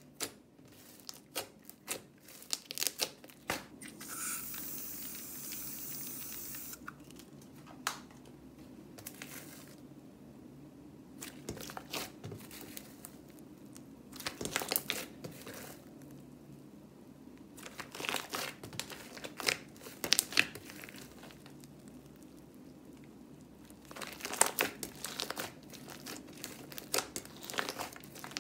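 Fluffy slime being squeezed, kneaded and pulled apart by hand, giving bursts of sticky crackling and popping clicks with quieter stretches between. A steady hiss runs for a few seconds about four seconds in.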